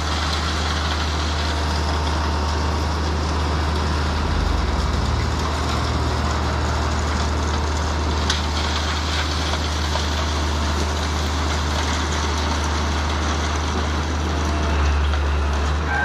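Steady diesel engine drone from an excavator and trucks working on the site.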